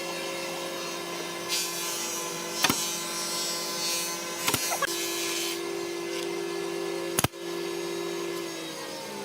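A power tool's motor running with a steady hum, with two stretches of hissy noise as it cuts wood, then winding down near the end. A few sharp clicks break in.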